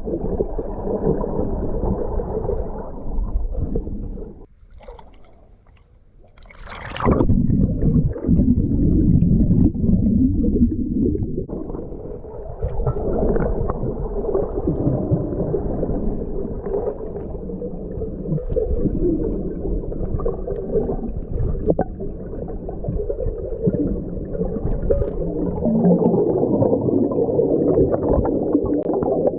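Muffled underwater rumbling and gurgling picked up by a submerged waterproof camera. It drops quieter for a moment, then a brief splashy burst comes about seven seconds in.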